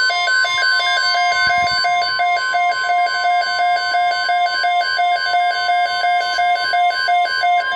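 NOAA Weather Radio's 1050 Hz warning alarm tone: one steady, piercing tone. A rapid beeping alarm alternates between two pitches over it and stops near the end. The tone signals that a watch or warning is about to be read.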